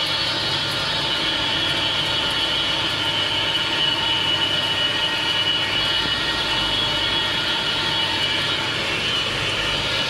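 Humic acid granulator machinery running steadily: a continuous mechanical din with a steady high whine.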